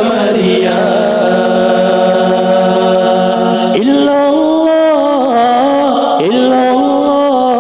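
Unaccompanied men's voices chanting an Acehnese nasyid (syair) through microphones, in long held notes joined by sliding, ornamented changes of pitch.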